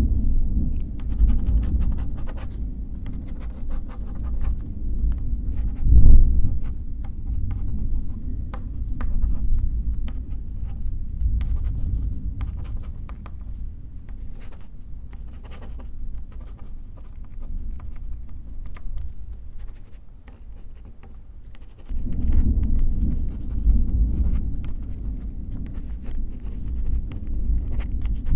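Pen writing on paper in many short, quick scratches, over the low rumble of distant thunder and rain. The rumble swells loudest about six seconds in, dies down toward twenty seconds, and rolls back in sharply about twenty-two seconds in.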